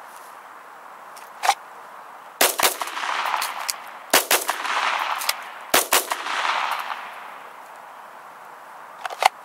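Handgun shots fired in quick pairs during a reload drill. There are three double shots about a second and a half apart, each trailed by a rolling echo. A single sharp crack comes about a second and a half in, and another comes near the end.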